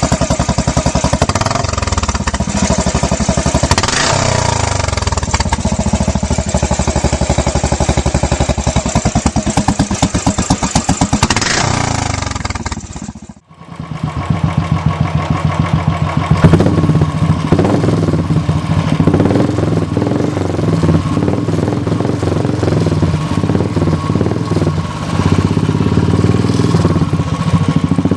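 Royal Enfield single-cylinder motorcycle engine thumping through its exhaust silencer, revved up and down a few times. About halfway through it cuts to another bike idling with a steady, even thump.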